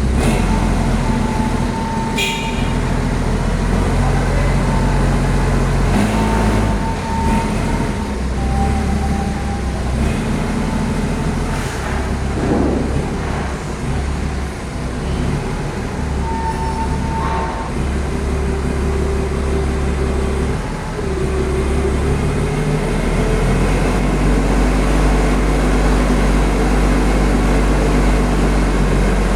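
Heavy road traffic: large vehicle engines running with a steady low drone that shifts in pitch every few seconds, with a few brief higher tones over it.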